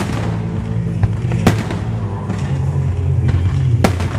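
Aerial fireworks shells bursting in sharp bangs, the loudest about a second and a half in and near the end, over background music with low sustained tones.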